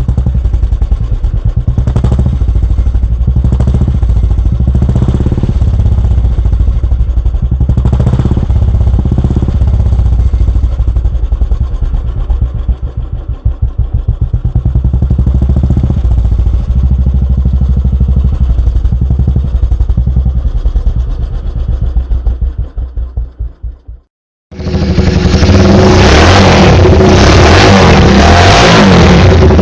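Royal Enfield Bullet single-cylinder four-stroke exhaust thumping through aftermarket silencers, idling with a few blips of the throttle. About 24 seconds in it cuts out briefly and a louder, harsher-sounding silencer takes over.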